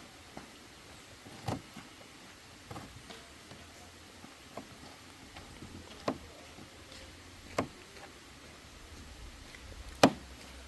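Kitchen work: about six separate sharp knocks and clicks of utensils, a second or two apart, over low background noise. The loudest comes near the end.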